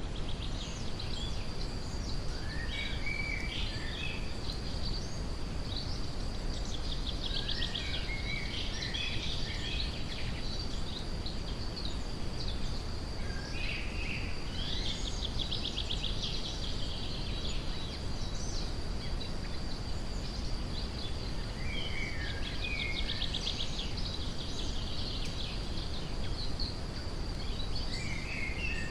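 Steady brown noise, deepest in the low end, with songbirds singing over it in short scattered phrases, several of them fast trills. A thin, steady high tone runs underneath.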